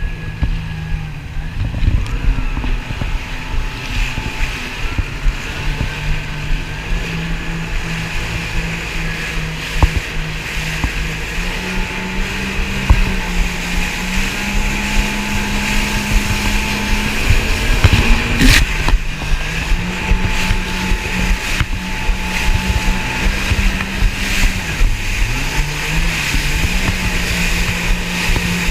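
Jet ski engine running at speed, its pitch stepping up and dipping with the throttle. Wind and water rush under it, with frequent thumps of the hull on choppy water.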